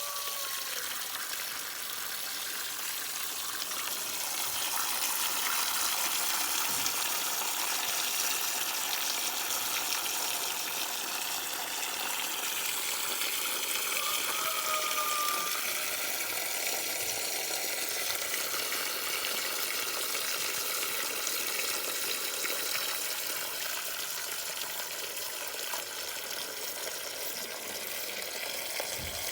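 Water running in a steady rushing hiss, with little low rumble and no break.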